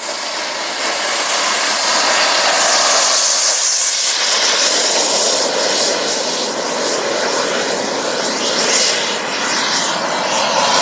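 Small turbine engine of a radio-controlled model jet running at take-off power: a steady rushing roar with a thin high whine that rises until about a second in and then holds.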